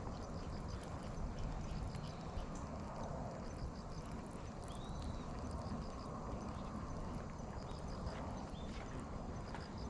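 Outdoor ambience: a steady low rumble with faint, high chirps repeating through it and one short rising-and-falling chirp about five seconds in.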